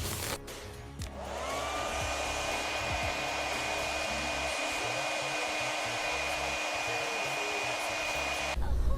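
Hair dryer switched on about a second in, its motor whine rising quickly and settling into a steady blowing hiss, then cut off abruptly near the end.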